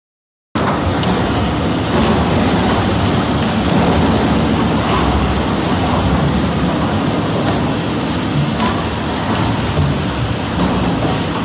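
Double-shaft shredder (Forrec TB1000) running and shredding electrical wires and cables: a loud, dense grinding noise with scattered sharp cracks, starting abruptly about half a second in.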